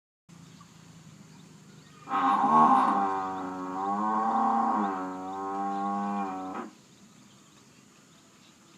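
A buffalo bellowing: one long, moo-like call lasting about four and a half seconds, starting about two seconds in, its pitch wavering slightly. A faint steady hiss lies underneath.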